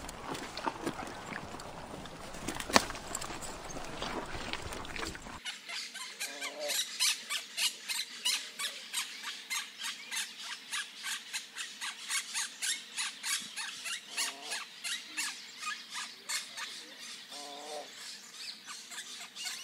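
Small birds chirping rapidly, several short high chirps a second with a few lower calls now and then, starting abruptly about five seconds in. Before that there is an even outdoor hiss with one sharp click.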